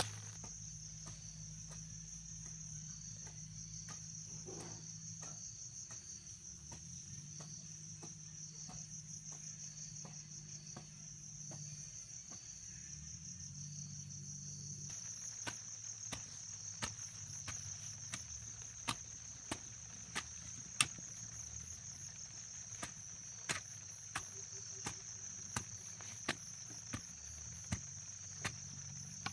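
A steady, high-pitched shrill of insects throughout, with irregular sharp knocks of a hoe blade striking soil, louder and more frequent in the second half.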